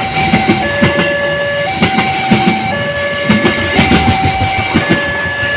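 A train passing with its wheels clattering over the rails, under a railway level-crossing alarm that alternates a high and a low tone about once a second.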